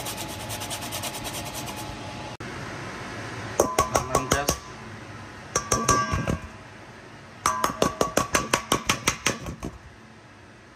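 A lemon rubbed in quick strokes across a flat metal grater to zest it. Then the grater is tapped rapidly against a stainless steel mixing bowl in three bursts, the last the longest, knocking the zest off; each tap clinks with a ringing note.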